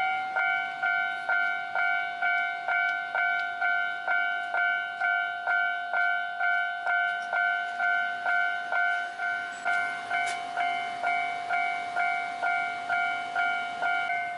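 Japanese railway level-crossing alarm ringing its repeated electronic "kan-kan" strike, about three strikes every two seconds, each with a ringing tail: the warning that a train is approaching and the barriers are coming down.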